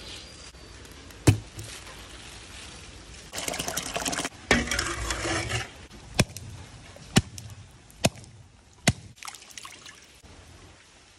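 Water splashing and trickling as a raw red snapper is handled and rinsed in the rain, with a dense burst of splashing in the middle. A handful of sharp knocks or taps stand out over a steady hiss of rain.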